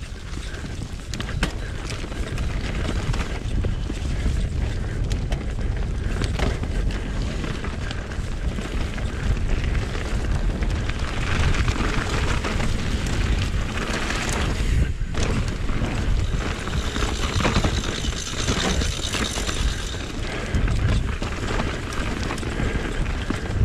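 Wind rumbling on an action camera's microphone, with the rattle and tyre noise of a mountain bike riding fast down a rough enduro trail; a brighter hiss swells twice, around the middle and again a few seconds later.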